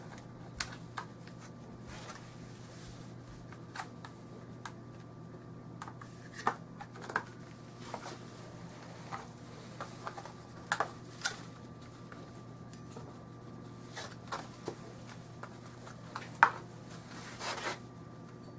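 Scattered light clicks, taps and rustles of disassembled SKS rifle parts and cleaning gear being handled and set down, a few sharper knocks among them, over a steady low hum.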